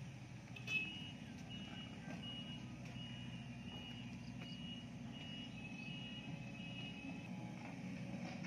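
Faint, distant excavator travelling: a steady low diesel rumble under its travel alarm, which beeps evenly about once every 0.7 seconds, starting just under a second in and stopping about a second before the end.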